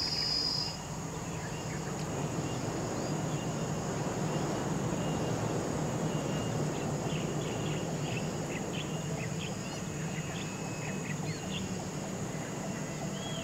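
Tropical forest ambience: a steady high insect drone over an even background hiss, with many short bird chirps scattered through the middle. A louder high insect buzz stops under a second in.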